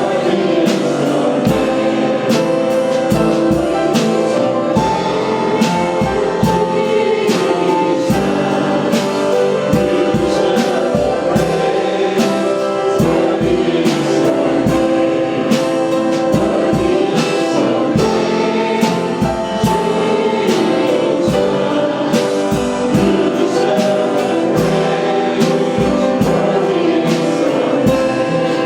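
Gospel worship music with singing and a steady beat.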